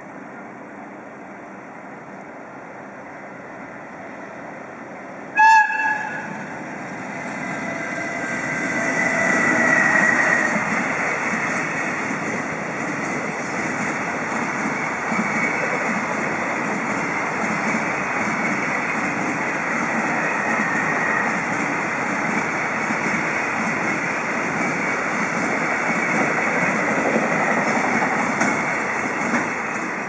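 A JR Freight EF210 electric locomotive gives one very short blast on its AW-2 whistle about five seconds in, then passes with a freight train. The noise of the train rolling by swells and holds steady, with wheels clattering over the rail joints and a faint high whine from the locomotive as it goes by.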